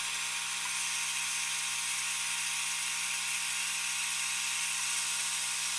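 Creality Falcon2 diode laser engraver running a cutting pass on silicone rubber: a steady whirring hiss from the machine.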